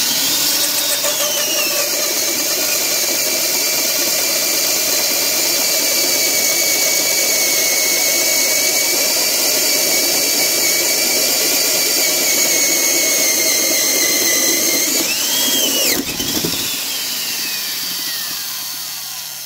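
Black & Decker 1321 half-inch heavy-duty corded drill boring a 2 9/16-inch spade-type bit through wood: the motor whine starts suddenly and runs steadily under load, bogging down a little. About sixteen seconds in the bit comes through the far side and catches, wanting to lock up, and the motor winds down with a long falling whine.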